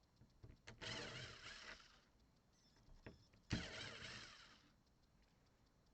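Cordless drill-driver running in two short bursts of about a second each, the second starting abruptly, as a screw is taken out of the door lock.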